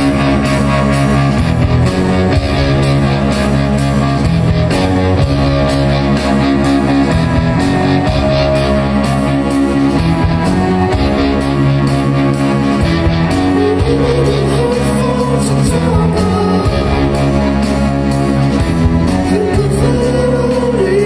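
Live rock band playing loud from the audience floor: a heavy, repeating electric guitar riff over bass and drums, with the sound of a concert PA. A singing voice comes in about two-thirds of the way through.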